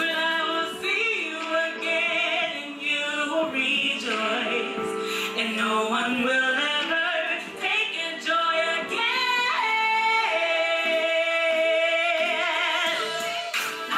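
A gospel vocalist singing over backing music, with wavering runs and vibrato, holding one long note in the second half.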